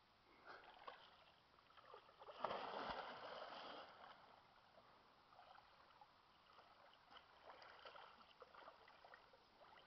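A person plunging into lake water with one big splash about two and a half seconds in, then swimming and wading with lighter splashes and drips.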